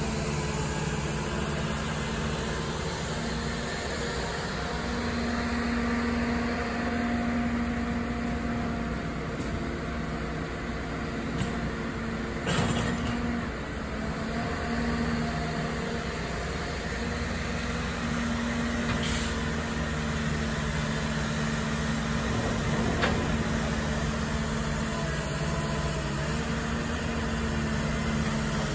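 Caterpillar 319D tracked excavator's diesel engine running steadily as it digs, its note shifting with the load. A few sharp knocks come through over the engine, the strongest about halfway through.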